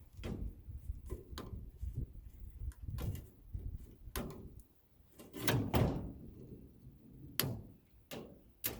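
Irregular clanks, clicks and knocks of sheet-metal furnace parts being handled and pulled apart, with a couple of louder knocks about halfway through and near the end.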